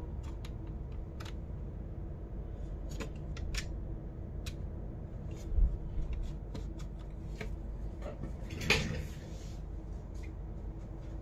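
Irregular light clicks and taps of a keyboard being handled during cleaning, with a dull thump about five and a half seconds in and a brief scraping rustle near nine seconds, over a low steady hum.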